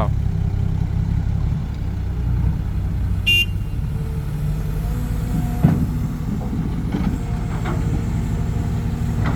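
Heavy diesel truck engine running steadily at low revs. A short high-pitched squeak comes about three seconds in and a single knock near the middle.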